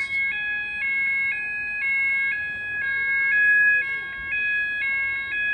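Fire alarm sounders going off: a two-tone alarm alternating about twice a second over a steady continuous tone.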